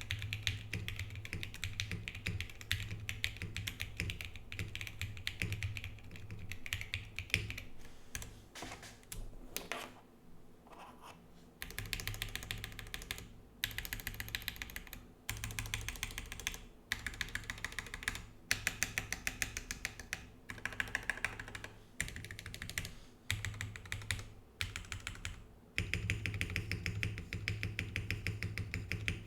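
Steady, fast typing on a Geonworks Frog TKL mechanical keyboard with SP-Star Meteor White switches, PBT keycaps and an aluminium plate on rubber tadpole mounts. It is a dense run of keystroke clicks, with a slower, sparser stretch about ten seconds in and a few short breaks between bursts.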